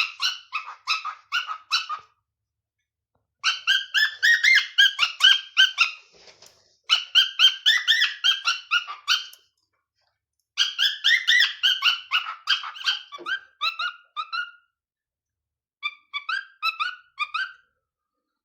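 Male cockatiel singing: runs of rapid chirping, warbling notes in five phrases with short pauses between them. His song is still being learned, with the melodies mixed up.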